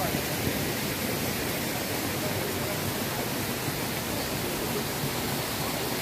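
Steady rush of running water from a mountain stream and waterfall: an even, unbroken hiss.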